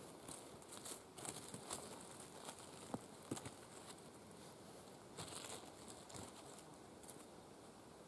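Faint rustling of dry leaf litter and small snaps and clicks as chanterelle mushrooms are cut from the forest floor with a small knife by hand, in scattered short bursts that thin out near the end.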